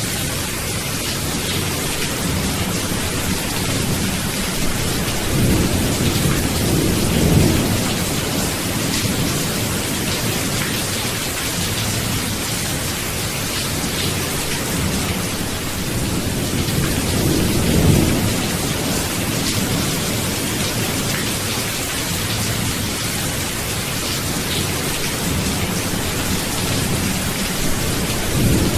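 Steady heavy rain hissing, with rolling thunder rumbling low beneath it and swelling three times: about a quarter of the way in, just past halfway, and again at the end.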